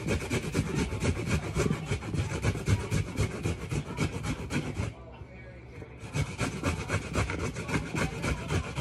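Peeled ginger root grated on a metal box grater in quick repeated strokes. The strokes pause for about a second around the middle, then start again.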